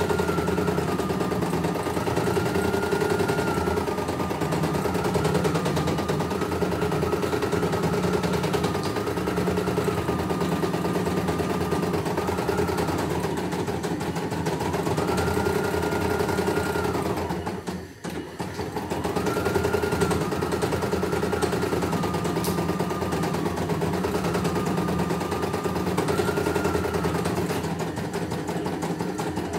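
CNY E900 computerised embroidery machine stitching a design: a fast, steady needle rattle under a high whine that steps up and down between two pitches. It stops briefly about eighteen seconds in, then starts again.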